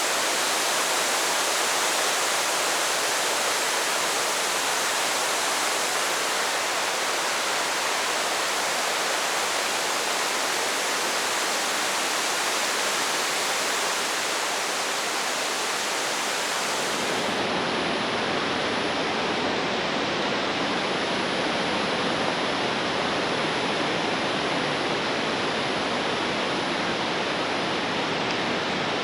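Waterfall: a steady, dense rush of falling water. About seventeen seconds in the sound shifts suddenly, getting fuller in the low end and duller on top.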